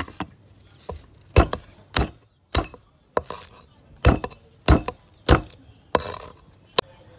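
A heavy cleaver chopping garlic cloves on a wooden cutting board. There are about a dozen separate sharp knocks, roughly one every half second, with an uneven rhythm.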